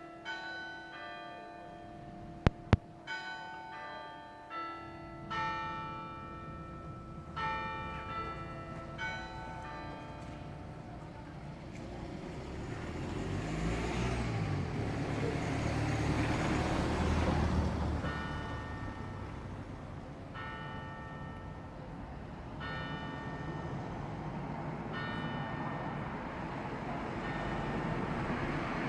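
Church bells being rung in changes: a steady stream of single strikes, each with a long ringing tail. A vehicle's low rumble swells and fades in the middle and picks up again near the end. Two sharp clicks come a couple of seconds in.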